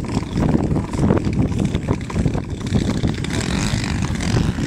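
Twin engines of a large radio-controlled PBY Catalina model running as it taxis across grass, under gusty wind buffeting the microphone with an uneven low rumble.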